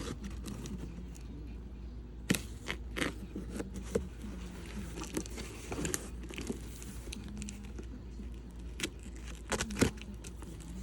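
Hands opening a cardboard shipping box: irregular tearing and crinkling of cardboard and packing material, with scattered sharp knocks and rustles.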